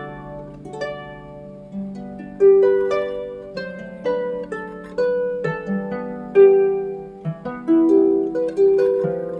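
Background music of plucked strings, a harp-like melody of notes that start sharply and fade, several a second.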